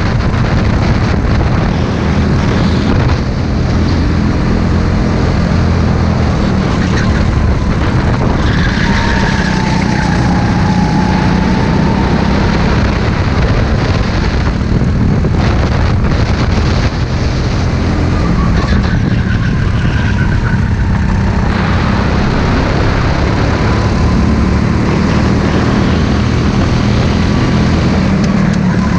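Racing go-kart engine running hard at speed, heard loud and close from onboard the kart.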